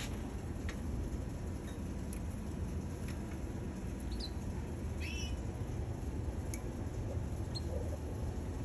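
A canary gives two short chirps about halfway through, over a steady low rumble, with a few faint clicks.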